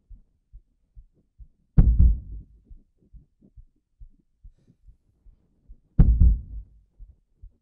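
Film soundtrack of a steady low thudding pulse, about two and a half beats a second, like a heartbeat. Two much louder deep hits fall about two seconds in and again about four seconds later, each dying away over about a second.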